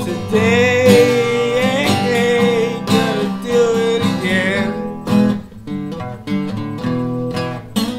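Acoustic guitar strummed while a man sings a long, wavering melody line; about four and a half seconds in the voice stops and the guitar carries on alone in steady strums.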